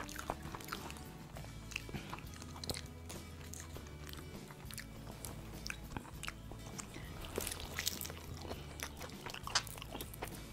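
Crispy fried chicken crunching as it is bitten, torn apart and chewed, with many sharp crackles scattered throughout, over steady background music.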